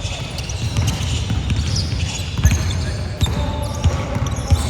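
Basketball bouncing on an indoor court, several irregular thuds, with short high squeaks of sneakers on the floor.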